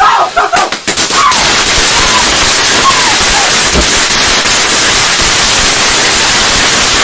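A firework going off: a few sharp pops, then loud continuous hissing and crackling, with faint shouts over it.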